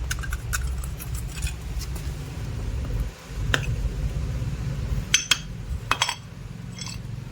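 Loose metal motorcycle engine parts, most likely the old clutch parts, clinking and clanking against each other as they are handled, with several sharp metallic clinks, two close together about five seconds in, over a steady low hum.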